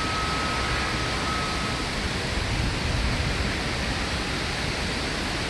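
Storm rain and wind in a severe thunderstorm: a steady rushing hiss of rain with a low, gusty rumble of wind on the microphone. A thin, steady high tone fades out about two seconds in.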